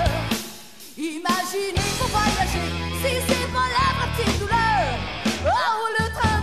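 Rock song with a singing voice over guitar and bass; the music drops away briefly about a second in.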